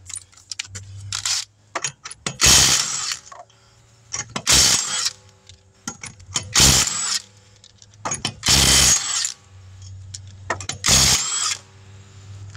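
Power tool zipping off the rear wheel's lug nuts: five short bursts about two seconds apart, one per nut, with a low hum between them.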